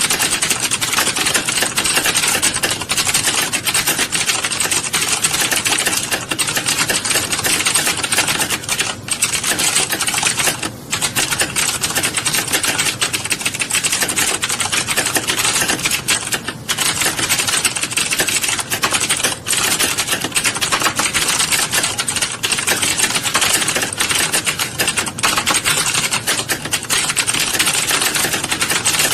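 Rapid, continuous typing on a keyboard, the keys clattering in a dense stream with a few brief pauses, the longest about eleven seconds in.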